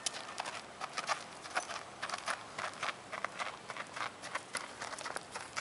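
Horse walking on a sandy, gravelly arena footing: an uneven run of hoofbeats, several a second.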